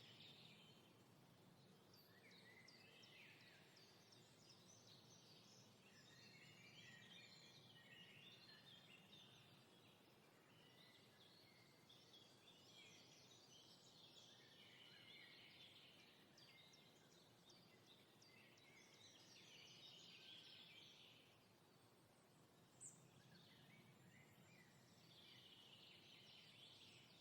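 Faint birds chirping and chattering in repeated rapid flurries over a low steady background rumble, with one sharp tick near the end.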